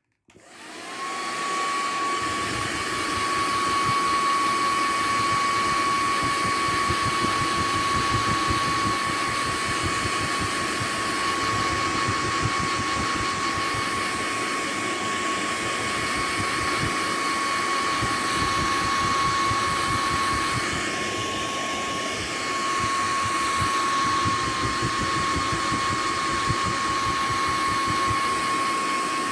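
Hair dryer switched on, its whine climbing within about a second to a steady high pitch over rushing air, then running continuously.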